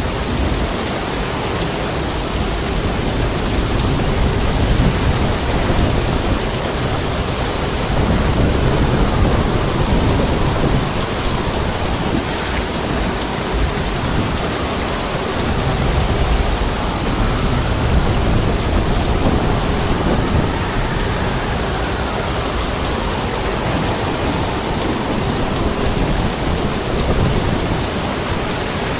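Heavy rain falling steadily, with wind, in a stormy ambience; deep low rumbles swell up several times.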